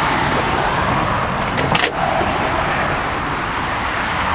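Road traffic passing steadily, with a few short metallic clicks about a second and a half in.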